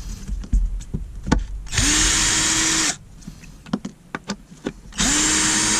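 A cheap 12 V cordless drill's motor spinning up twice in short runs of about a second each, its pitch rising as it starts and falling as it stops, with small handling clicks in between.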